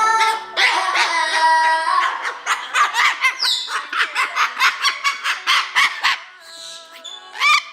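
A parrot vocalizing. It gives pitched calls for about two seconds, then a fast, even run of short squawks, several a second, which fades near the end. This is the bird's rhythmic "singing," taught by the owner imitating its voice to a beat.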